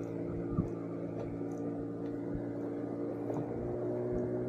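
A small fishing boat's engine running steadily, a low even hum whose pitch shifts slightly about three and a half seconds in.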